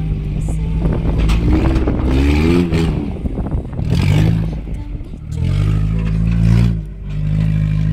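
Suzuki Samurai's engine revving under load while the 4x4 crawls up a steep dirt slope. The pitch climbs about two seconds in, and the engine eases off briefly near the middle and again near the end before picking up again.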